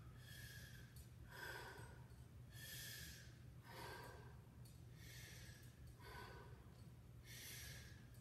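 A man breathing faintly and evenly while holding a side plank: about seven soft breaths in and out, roughly one a second, over a low steady room hum.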